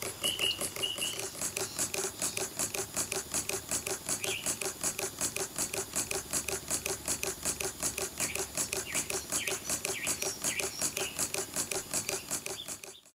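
Model two-cylinder, single-cam factory engine running on compressed air, puffing and clicking in a fast, even beat. It cuts off abruptly near the end.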